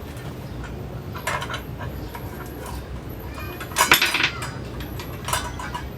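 Metal parts of a cordless circular saw clinking and clattering as they are handled during a blade change. There are a few short clinks, with the loudest clatter about four seconds in.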